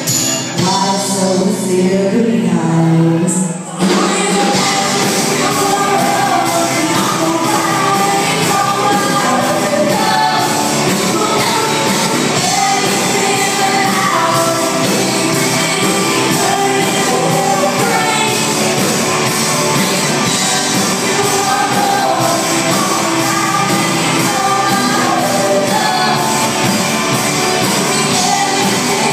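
Live pop-rock band playing loudly in a hall, with a female lead singer and electric guitars. A sparser passage of held notes opens it, and the full band comes in about four seconds in.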